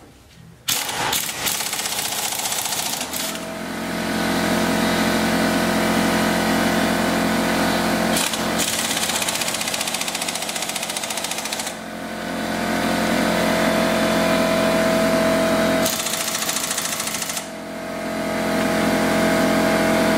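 Pneumatic impact wrench (air gun) running in long bursts with short breaks, hammering as it snugs up the brake caliper bracket bolts.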